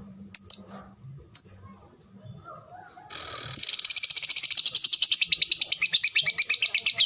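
Lovebird singing: a few short, high chirps, then about three and a half seconds in a long, fast, evenly repeated chattering run of notes sets in and keeps going without a break. This is the continuous trill that lovebird keepers call ngekek.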